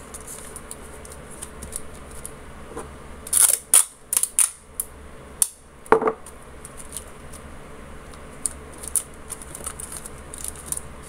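Grey duct tape pulled off its roll and torn: a cluster of sharp crackles and rips about a third of the way in. Around it, the rustle and crinkle of a folded paper strip being wrapped and pressed with tape.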